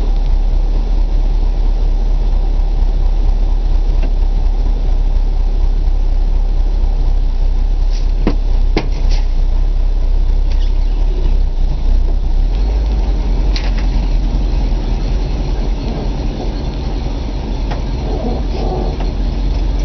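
1966 Ford Thunderbird's V8 idling steadily while still cold from a start after months of sitting. A few sharp clicks come about eight seconds in and again near fourteen seconds.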